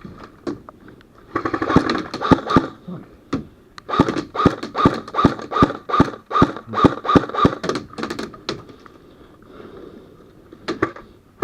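Airsoft gun firing: a fast burst lasting about a second and a half, then, after a short pause, a steady string of shots at about three a second with a motor whine under them, and a couple more shots near the end.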